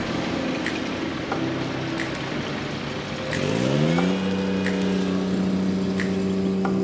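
A vehicle engine running, rising in pitch a little past halfway and then holding steady, with faint ticks at fairly even spacing.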